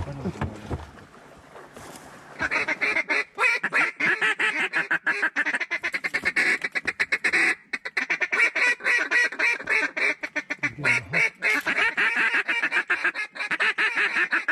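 Duck calling: after about two quieter seconds, a rapid, unbroken run of mallard quacks and chatter sets in and keeps going.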